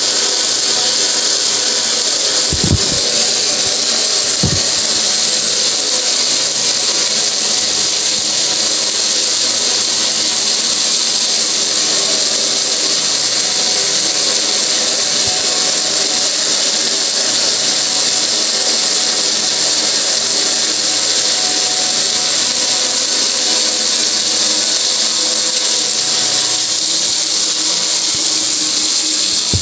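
Garden hose nozzle spraying a hard jet of water onto a gas grill's lid and body: a loud, steady hiss. Two brief low thumps come about three and four and a half seconds in.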